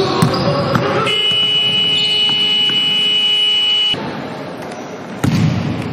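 Basketball scoreboard horn sounding one steady, loud note for about three seconds, starting about a second in and cutting off suddenly. A couple of sharp knocks come just before it.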